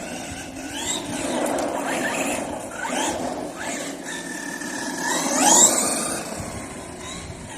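Brushless electric motor of a Maverick Strada XT Evo RC car whining and rising in pitch several times as it accelerates, loudest about five and a half seconds in, over a steady rushing noise.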